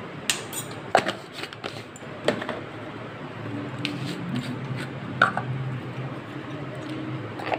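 Metal spoon clinking against the rim of a stainless-steel bowl about six times, each a sharp tap with a short ring. From about three seconds in, a low hum runs underneath.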